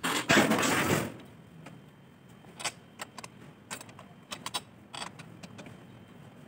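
A loud burst of hissing noise lasting about a second, then scattered light clicks and knocks, a few every second.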